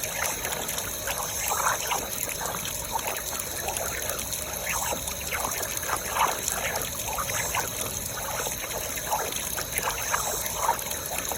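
Water trickling and gurgling from a broken, leaking valve in a quick irregular patter over a steady hiss.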